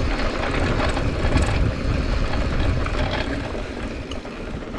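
Mountain bike ridden down a rocky dirt singletrack: tyres rolling over dirt and loose stones, with rattles and clicks from the bike, under a low rumble of wind buffeting the on-bike camera's microphone.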